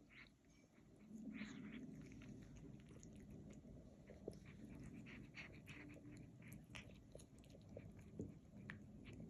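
Faint sound of a cat eating: small chewing and lapping clicks, with a few short murmured 'nom nom' noises as it eats.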